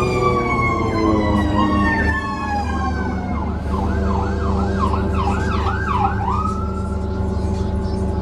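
New Flyer XDE40 hybrid bus's electric drive whining: a stack of tones falls in pitch over the first few seconds as the bus slows, over a steady low drone. About halfway in, a siren warbles quickly up and down for about three seconds, then a steady whine comes back.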